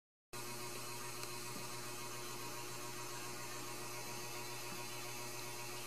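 Steady low hum with an even hiss over it, coming in a moment after the start and running unchanged.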